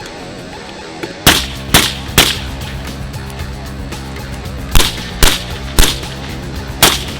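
Gunshots in quick strings of three, about half a second apart: two strings, then another begins near the end, over music.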